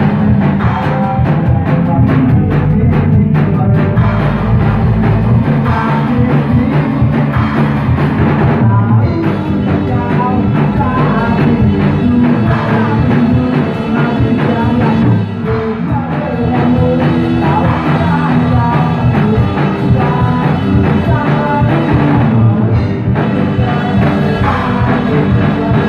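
Rock band playing live: drum kit with cymbals driving a steady beat under electric guitars.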